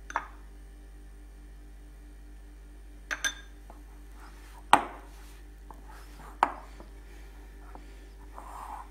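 Five sharp knocks and clinks of a glass mixing bowl, including a quick pair about three seconds in and the loudest just before five seconds, as hands knead pizza dough in it. Between the knocks the dough work is barely heard.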